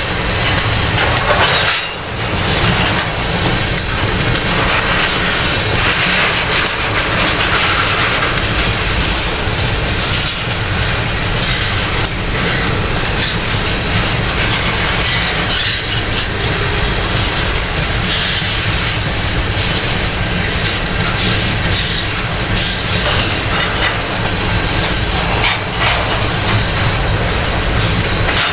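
Slow freight train of covered hopper cars rolling past, its steel wheels clicking over the rail joints, with wind buffeting the microphone.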